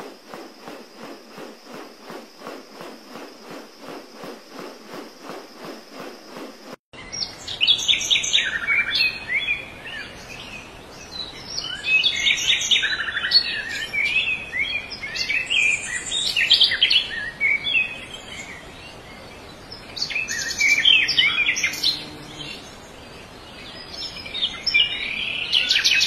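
For about the first seven seconds, a steady rhythmic pulsing of about three beats a second. Then, in four bouts, rapid high-pitched chirping that fits white-eye fledglings begging to be fed.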